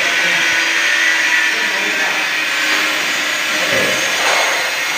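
Power tool running steadily with a loud, even noise, its pitch dipping briefly about four seconds in.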